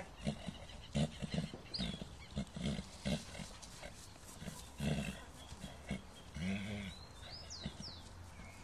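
Horses mating: the stallion gives low grunts in short, irregular bursts while covering the mare.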